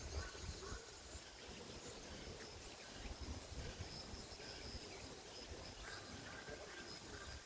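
Faint outdoor ambience: short bird calls near the start and again about six seconds in, a high insect-like hum, and low wind rumble on the microphone.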